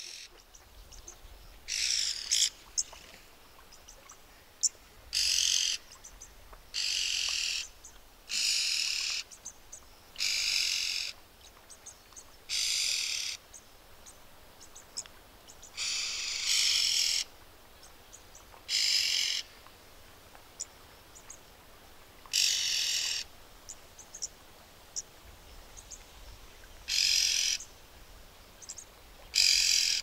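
Red-billed oxpecker calling: about a dozen harsh, rasping hiss-like calls, each half a second to a second long, repeated at uneven gaps of one to four seconds.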